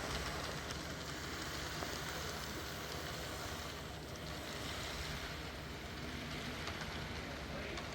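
Model diesel locomotive running on layout track: a steady, even rumble and hiss with no distinct beats or changes.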